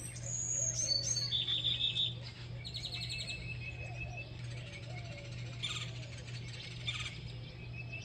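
Several songbirds chirping and singing, with two fast trills of rapid repeated notes in the first few seconds and scattered calls after, over a steady low hum.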